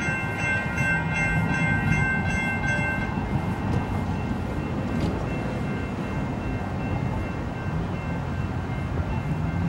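Railroad crossing warning bell ringing in rapid, even strokes, stopping about three seconds in, over a steady low rumble.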